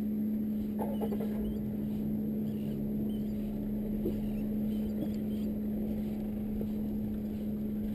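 Boat engine idling, a steady low hum that holds unchanged throughout.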